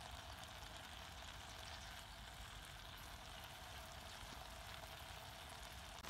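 Bacon rashers frying in a small frying pan over a fuel-block stove: a faint, steady sizzle with fine crackles, over a low rumble.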